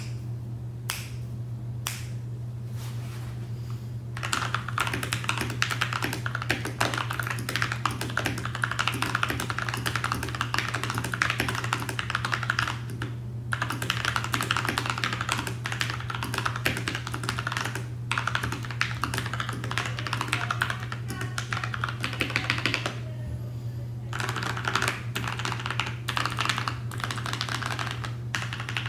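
Magicforce 65 mechanical keyboard with tactile Gateron Brown switches, drip-lubed with Superlube, being typed on: a few single keystrokes, then fast continuous typing broken by two short pauses. A steady low hum runs underneath.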